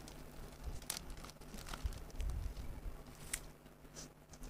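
Quiet mealtime sounds: scattered clicks of chopsticks and a spoon against a plate, chewing, and a few brief crinkles as a large sheet of dried seaweed is handled.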